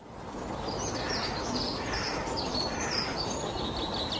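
Songbird singing: quick, high chirping and trilling phrases over steady background noise.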